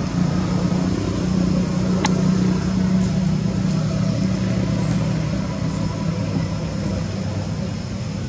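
A steady low motor hum, with one sharp click about two seconds in.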